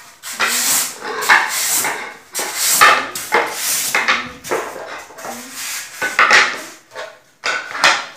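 Small laminated wooden board panels being handled and stacked on one another: repeated clacks of board on board with scraping as they slide into the pile.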